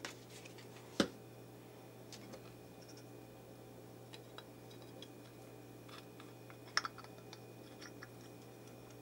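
Small clicks and taps of a sewing machine motor's housing and end cap being handled and fitted together, with a sharper knock about a second in and a quick pair of knocks near the end.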